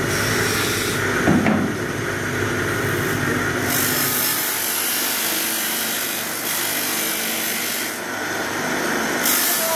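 Bench polishing motor running with a small metal knife part pressed against its spinning abrasive wheel, a steady rubbing hiss that changes tone a few times as the part is worked against the wheel.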